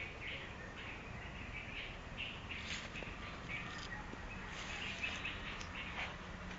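Several birds chirping and calling, short high calls overlapping one after another.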